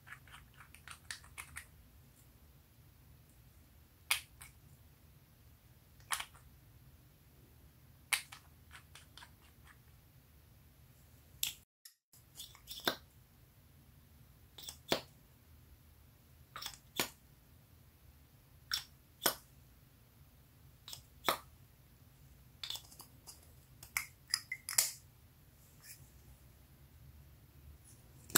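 Sharp clicks and taps of small makeup bottles and their caps being handled, spaced about two seconds apart at first and coming in quicker clusters later, over a low steady hum.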